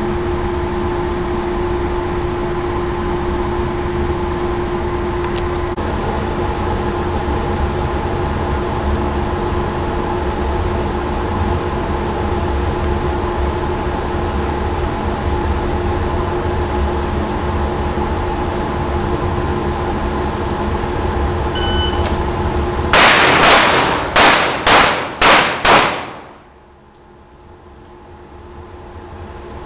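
Steady mechanical hum of the indoor range's ventilation, then a shot timer's start beep followed about a second later by six pistol shots in about three seconds.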